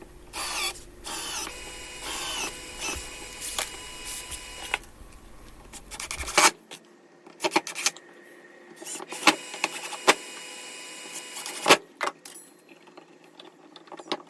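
Ryobi One+ 18V cordless drill run in several short bursts, with a steady motor whine, drilling pilot holes or driving screws into MDF. Later come a few separate sharp clicks and knocks, the loudest just before the end.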